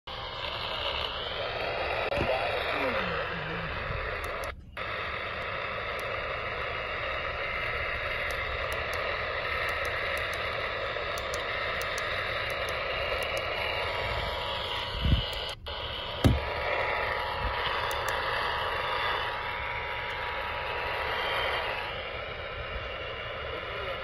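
AM radio tuned to 820 kHz (WBAP) giving steady hiss and static crackle, with faint muffled station audio underneath. The signal drops out briefly twice, and a faint steady whistle comes in about halfway and stops near the end.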